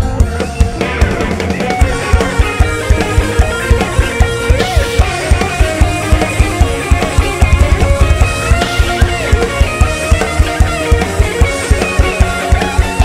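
A live mor lam band playing an instrumental passage: a drum kit keeps a steady beat of about three kick hits a second under melodic lines.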